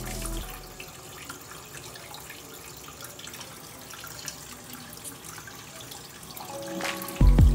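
Aquarium filter's return water trickling and splashing steadily into the tank. Background music fades out just after the start and comes back loudly near the end.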